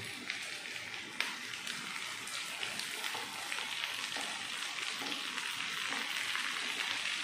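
Chopped okra sizzling in hot oil in a frying pan as it is tipped in, a steady frying hiss that grows a little louder.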